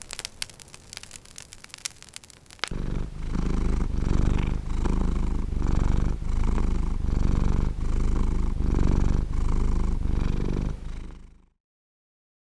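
Wood fire crackling with scattered sharp pops for the first few seconds. Then a cat purring loudly, swelling and easing with each breath about twice a second, until it cuts off near the end.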